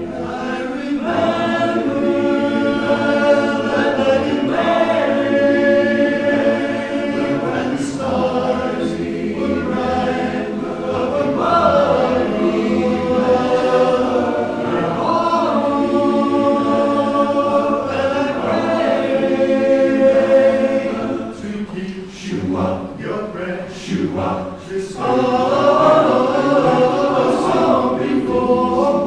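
Barbershop chorus singing unaccompanied in close harmony, holding full sustained chords that shift from one to the next. About three-quarters of the way through, the singing breaks into short, clipped notes with brief dips before the full chords return.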